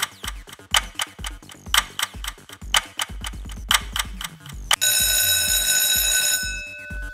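Quiz countdown sound effect: a clock ticking about twice a second over a steady bass beat, then about five seconds in an alarm-clock ring sounds for about a second and a half and fades, signalling that time is up.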